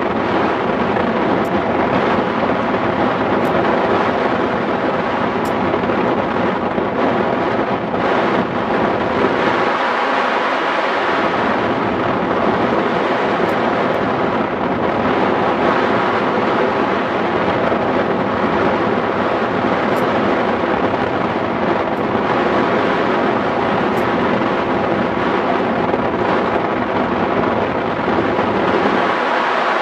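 Steady, loud rush of airflow over the microphone of a camera mounted on a hang glider in flight.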